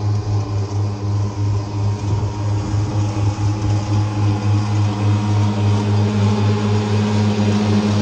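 FJD VIDAR Z42P ride-on zero-turn mower running steadily as it drives across the lawn, with a constant engine hum and a slight regular pulse.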